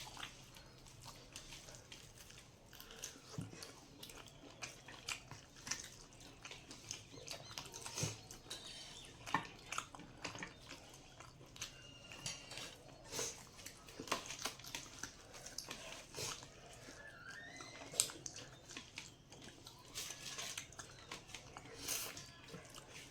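Soft chewing and mouth smacking from a person eating a meal of rice and duck curry, with many scattered light clicks and one short rising squeak about 17 seconds in.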